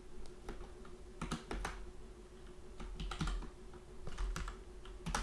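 Computer keyboard typing: irregular keystrokes in short runs, with pauses between them.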